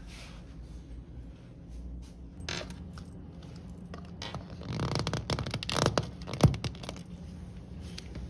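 Hard clear plastic cake dome handled in the hands: scattered plastic clicks, taps and scrapes, busiest in the second half, with one sharp click about six and a half seconds in.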